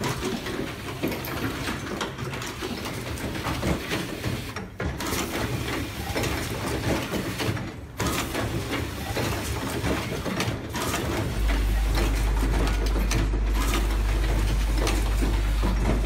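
YH009a automatic plug insert crimping machine running: a continuous mechanical clatter of rapid clicks. A steady low hum comes in about two-thirds of the way through and stays.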